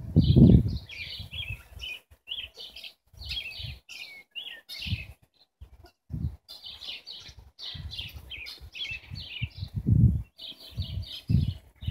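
Small birds chirping in quick, repeated bursts throughout, with a few irregular low rumbles, the loudest about half a second in and again around ten seconds.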